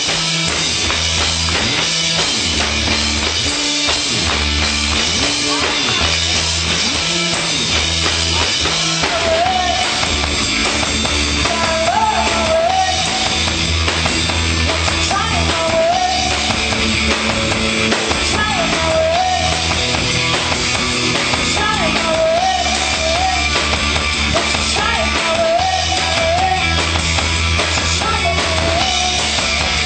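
Rock band playing live: drum kit, bass and guitar keep a steady beat. From about nine seconds in, a short wavering melodic phrase repeats every few seconds over it.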